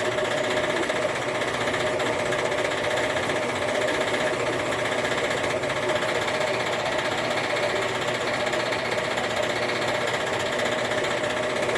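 Metal-cutting bandsaw running steadily, its blade sawing through aluminum bar stock, with a constant whine over a rasping hiss.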